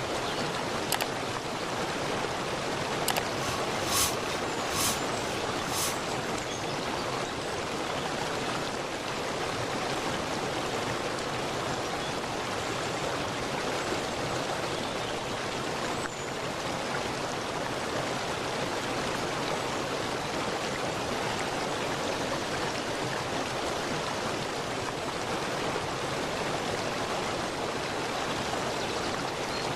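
Running water of a stream rushing steadily, with a few short high-pitched sounds a few seconds in.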